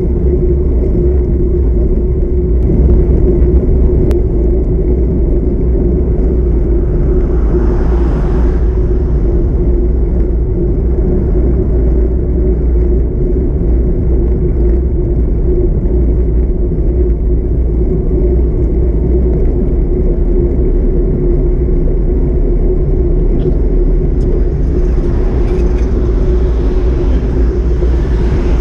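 Steady low rumble of wind and road noise on a bicycle-mounted camera while riding. A car goes by about eight seconds in, and another passes near the end.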